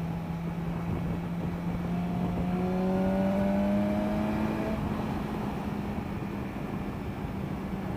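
Kawasaki Versys motorcycle engine running at road speed, its note climbing gently as the bike speeds up, loudest about three to four seconds in.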